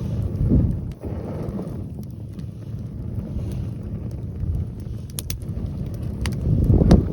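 Wind buffeting the microphone in low rumbling gusts, strongest about half a second in and near the end, over a wood bonfire that gives a few sharp crackles and pops in the second half.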